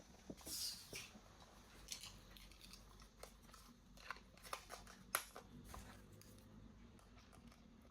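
Faint clicks and short rustles of toy packaging and plastic parts being handled, with a brief rustling sweep about half a second in and a cluster of sharp clicks around four to five seconds in.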